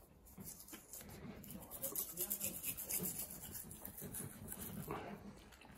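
Faint scratchy scrubbing of a toothbrush on an Alaskan malamute's teeth, in quick back-and-forth strokes that are most distinct in the middle.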